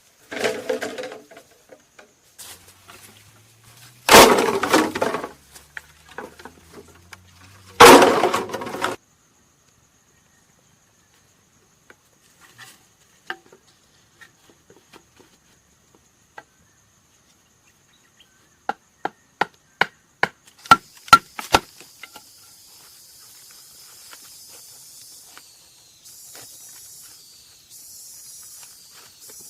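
Wood being struck and broken: two heavy crashes about four seconds apart, then a quick run of sharp taps, followed by a steady high hiss.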